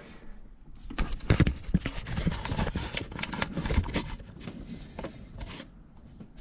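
A quick, irregular run of clattering knocks and scrapes for about three seconds, with a few more near the end.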